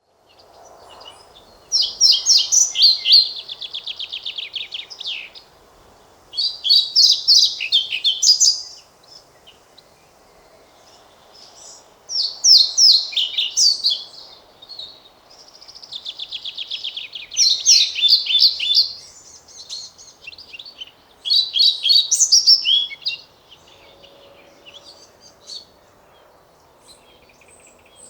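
European pied flycatcher singing: five song phrases about five seconds apart, each two to three seconds of rapid high repeated notes.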